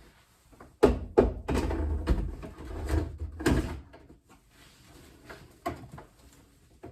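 Heavy bumps, knocks and scraping of a clothes dryer being pushed back toward the wall, a dense run of thuds for about three seconds, then a few lighter knocks.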